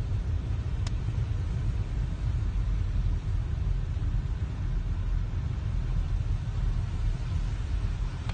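Steady low rumble of heavy road vehicles and road noise, with a faint short tick about a second in.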